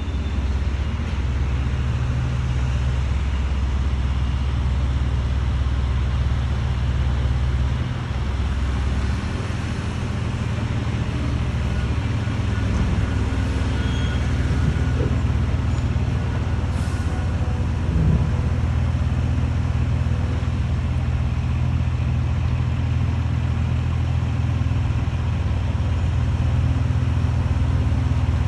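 Diesel engines of heavy earthmoving equipment, a padfoot soil compactor roller and a water truck, running with a steady low hum. The engine note shifts about eight seconds in, and a single brief knock comes a little past the middle.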